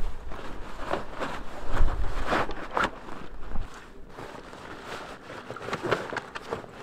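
Canvas rucksack being handled and set down, with its fabric rustling and its straps and buckles clicking and knocking in irregular bursts, mostly in the first three seconds. Footsteps on frozen ground and low wind rumble on the microphone come in near the start and again about two seconds in.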